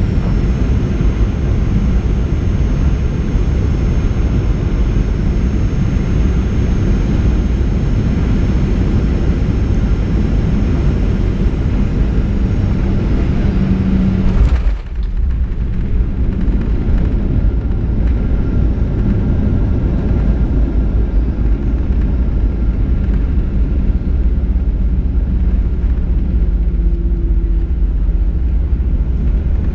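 Cabin noise inside a Boeing 737-800 landing: the steady deep rumble of airflow and its CFM56 engines. About halfway through a brief jolt and dip mark the main wheels touching down, and the rumble then continues with less hiss as the jet rolls down the runway.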